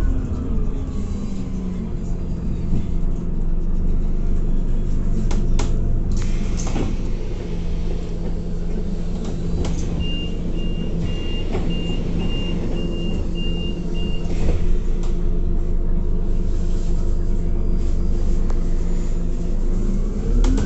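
Inside a 2018 Scania Citywide 12LF CNG city bus: the engine and driveline whine falls away as the bus slows to a stop, and then the engine idles steadily. About five to seven seconds in there are a few sharp clicks, and from about ten seconds to fourteen a high door-warning beep repeats about twice a second. Near the end the whine rises again as the bus pulls away.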